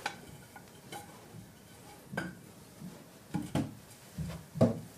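A short wooden board knocking and clattering against storage cabinets as it is fitted into the gap between them: a handful of irregular sharp knocks, the loudest near the end.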